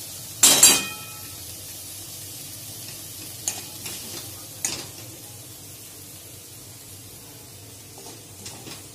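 Steel spoon stirring and scraping dried shrimp in a coated kadhai, then scooping it out. About half a second in there is a loud ringing clank of spoon on pan, followed by softer taps and scrapes. A faint steady sizzle from the hot pan runs underneath.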